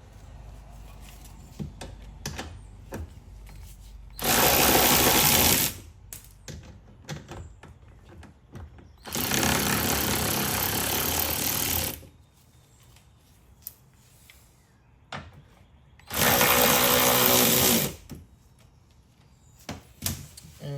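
Cordless power wrench with a 10 mm socket, run in reverse three times, about 1.5, 3 and 2 seconds each, backing out nuts. Light clicks and handling between runs.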